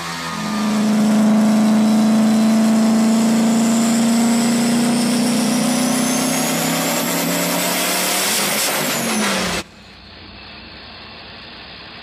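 Diesel pickup truck engine held at full throttle, pouring black smoke, with a high whine climbing steadily in pitch. Near the end the pitch falls and the sound cuts off abruptly, leaving a much quieter steady rumble.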